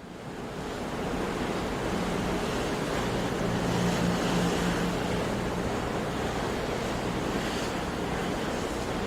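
Sea waves washing in a continuous surge of surf noise, with wind; the sound fades in from silence over the first second.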